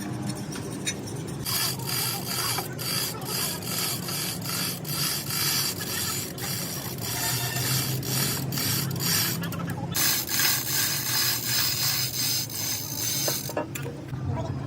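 Rapid, repeated rasping strokes of a hand tool worked back and forth, starting about a second and a half in, pausing briefly about ten seconds in, then going on until shortly before the end, over a low steady hum.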